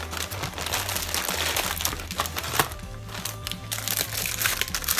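Thin clear plastic bag crinkling and crackling as it is handled and pulled open, over background music with a steady low bass.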